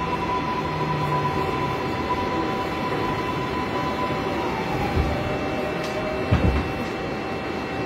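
Inside a New York City 6-line subway car: steady running rumble with a high electric motor whine that drops in pitch about two-thirds of the way through as the train slows into a station.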